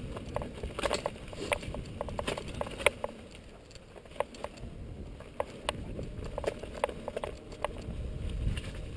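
Mountain bike rolling fast down a rough dirt singletrack: a low rumble of tyres on the ground, broken by irregular sharp clicks and rattles as the bike jolts over stones and roots.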